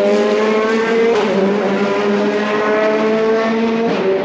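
Sports car engine running at high revs, its pitch climbing slowly, with a drop in pitch near the end.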